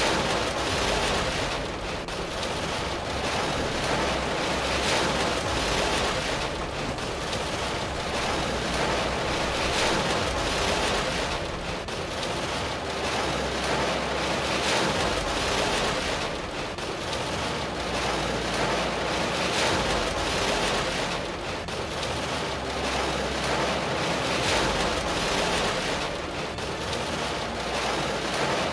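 Volcanic eruption's lava fountain: a continuous rushing noise that swells and eases every few seconds.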